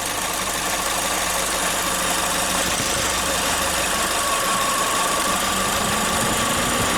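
Chevrolet Spin's four-cylinder engine idling steadily, with the electric radiator cooling fan coming on and building to a steady hum over the last few seconds.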